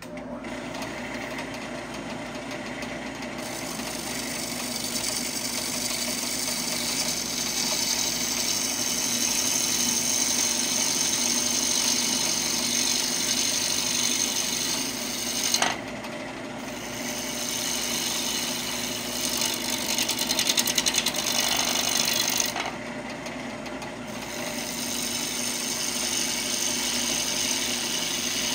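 Wood lathe running while a bowl gouge cuts into a spinning glued-up hardwood blank: continuous scraping cutting noise over the lathe motor's steady hum. The cutting noise lets up briefly about halfway through and again later, as the tool comes off the wood.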